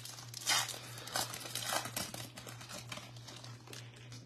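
A Bowman baseball card pack's wrapper being torn open and crinkled by hand: a few short rustling bursts in the first two seconds, then fainter crinkles as the cards come out.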